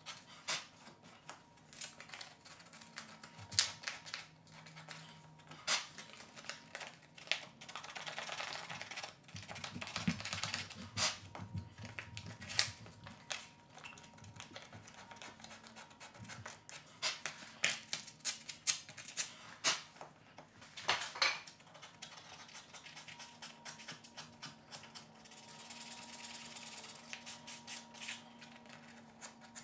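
Fine-grit sandpaper rubbed by hand over the corner joint of wooden door casing, clearing excess filler: short, sharp scratchy strokes in irregular spurts, with two longer runs of steady rubbing about eight and twenty-five seconds in. Near the end a sponge sanding block takes over.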